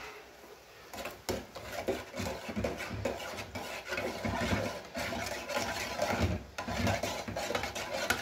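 A spoon stirring thick cream-based white sauce in a metal saucepan, scraping against the pan in a continuous run of irregular strokes that starts about a second in.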